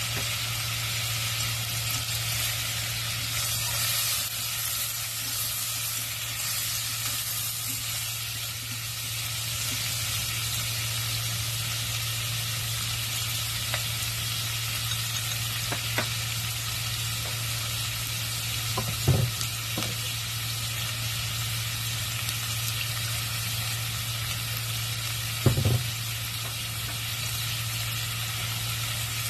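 Fried pork ribs, onion and pineapple chunks sizzling in a stainless steel saucepan as they sauté, a steady hiss over a low steady hum. Two sharper knocks come in the second half.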